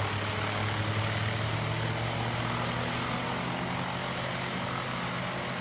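Large diesel-powered drum chipper running steadily, a constant engine drone with no feed or chipping impacts heard.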